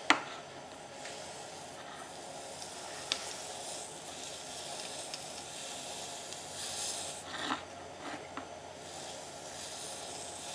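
Low, steady sizzling of the electrolyte as a homemade electropolishing wand is worked over a stainless steel weld, with a few brief clicks and a short louder burst about seven and a half seconds in.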